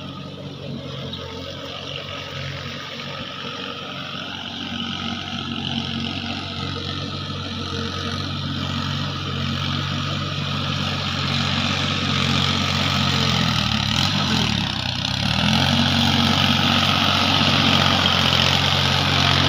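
Sonalika GardenTrac mini tractor's diesel engine running steadily as it pulls a puddling implement through wet rice-field mud, growing louder as it approaches. About fourteen seconds in, the engine speed dips briefly and then comes back up.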